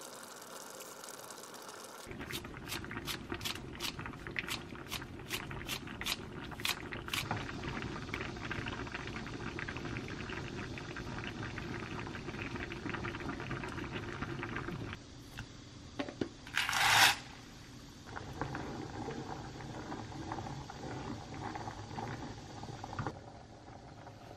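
Korean army stew (budae jjigae) simmering in a frying pan: a steady bubbling that starts about two seconds in, with many small pops at first. About two thirds through there is a brief, louder burst of noise.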